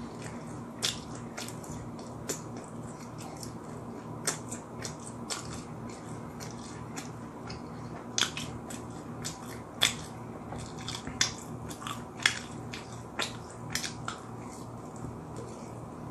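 Close-up chewing of crispy fried chicken: many short, irregular crunches, loudest near the middle, over a steady low hum.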